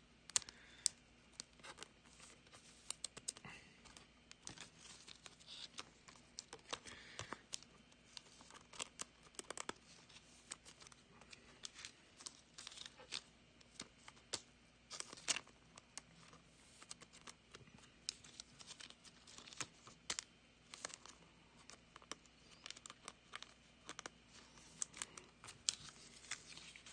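Clear soft plastic card sleeves crinkling and trading cards scraping as cards are slid into them: a steady run of faint, irregular rustles and small clicks.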